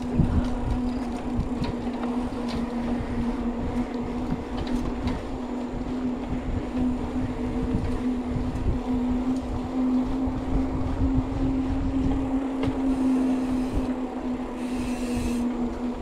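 Mountain bike rolling at speed: a steady hum from the bike, with wind buffeting the camera microphone underneath.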